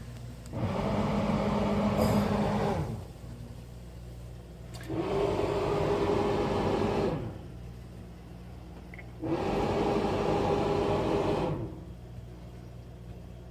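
Frigidaire ice-making appliance making its weird noise: a loud buzzing grind that comes in bursts of about two seconds, about every four and a half seconds, over a steady low hum. The owner takes it for a sign of a frozen-over evaporator that is not defrosting.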